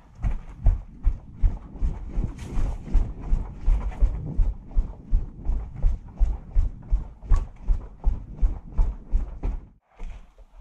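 Footsteps of a person moving fast, about two to three heavy steps a second, with a brief pause near the end.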